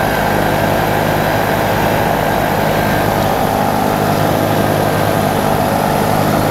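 Paramotor engine and propeller running at a steady throttle in flight, an even drone with a hiss of rushing air on top.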